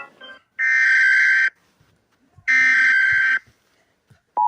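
Two blasts of a harsh electronic alarm buzzer, each just under a second long and about two seconds apart. They are part of a mock emergency or tornado alert sequence.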